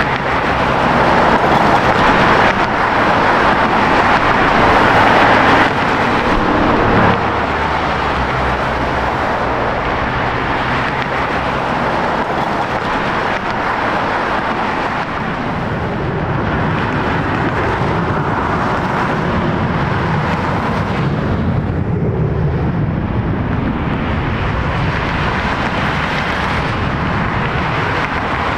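Jet airliner engines running on the airfield: a steady rush of engine noise, louder for the first seven seconds or so, then level.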